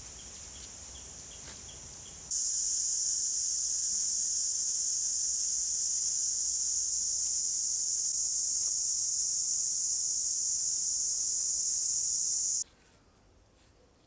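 Insects buzzing: a faint hum with light repeated chirps, then a loud, steady high-pitched drone that starts suddenly about two seconds in and stops suddenly near the end, leaving only faint clicks.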